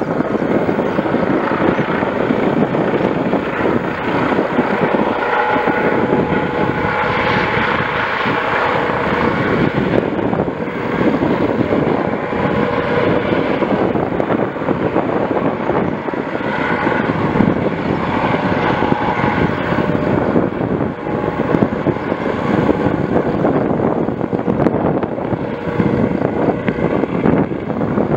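Airbus Helicopters EC155B1 helicopter, its twin turboshaft engines and rotors running steadily as it approaches and hovers low to land. The noise is loud and continuous and swells a couple of times.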